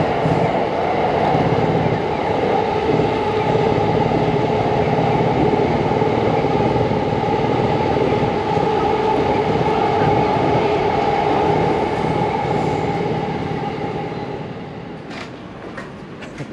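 Train running on an elevated railway: a steady rumble with a held humming tone, fading away about fourteen seconds in. A few sharp clicks follow near the end.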